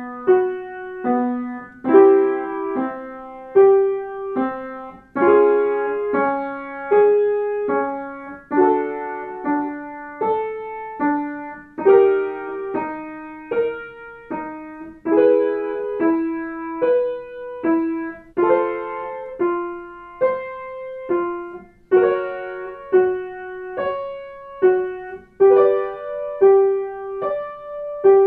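Piano playing warmup accompaniment for a singing exercise: a short group of notes opening with a chord, repeated over and over, each repeat shifted a step higher in key.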